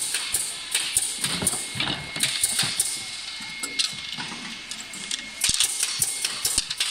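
Wooden hangers clacking against one another and knocking on a cardboard box as they are packed in by hand: a dense, irregular run of sharp clacks.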